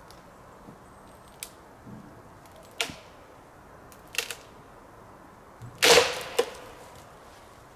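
Dead lower branches of a spruce snapping as they are broken off by hand: a run of sharp dry cracks roughly every second and a half. The loudest crack comes near the end with a brief crackle of twigs after it.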